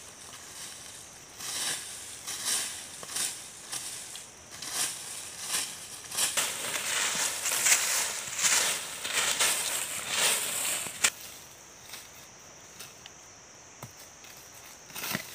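Dry fallen leaves being swept and scraped across bare dirt ground by hand in repeated rustling strokes, which come thicker in the middle and stop about eleven seconds in. A steady high-pitched hiss runs underneath.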